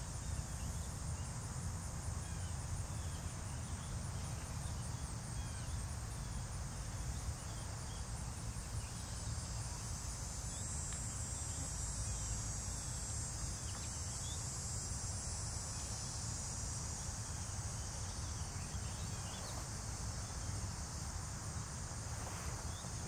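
Steady high-pitched trilling of a late-summer insect chorus, over a constant low rumble.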